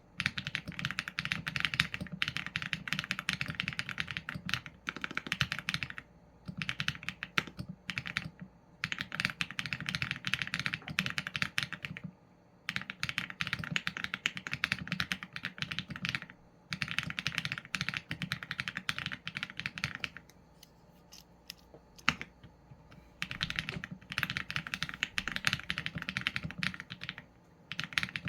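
Mechanical keyboard typing on a Qsenn A75 with Leobog Graywood v4 linear switches and PBT keycaps. Keys are struck in fast runs broken by short pauses, with one longer pause of about three seconds about two-thirds of the way through.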